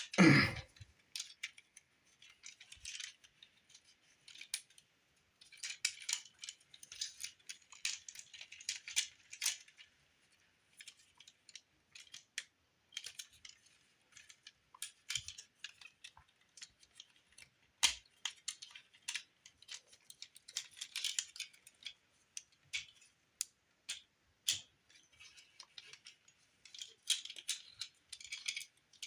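Plastic clicks, snaps and rattles of a Transformers Studio Series Deluxe Ironhide figure's parts being folded and pegged into place by hand, in scattered bursts with short pauses. There is a short, louder sound right at the start.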